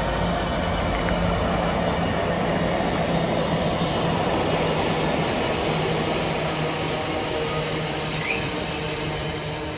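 Diesel-hauled freight train passing slowly as it runs in toward a red signal: a steady low locomotive engine tone over the continuous rumble of wagons on the rails, with a brief rising squeak near the end.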